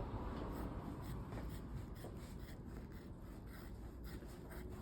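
Scissors cutting through upholstery foam: a quiet, continuing run of faint cutting and scraping sounds.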